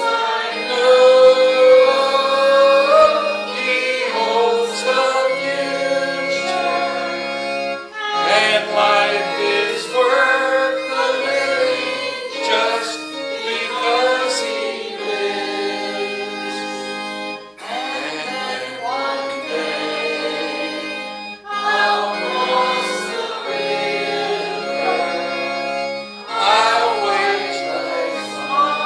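Voices singing a hymn together over steady held chords from a keyboard instrument.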